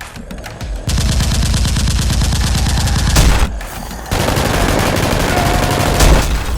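Rapid automatic gunfire in two long volleys, with a short lull a little past three seconds in.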